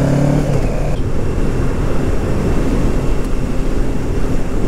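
Kawasaki Ninja 650's parallel-twin engine pulling under acceleration, its note rising through the first second, then settling into a steady drone under heavy wind rush at road speed.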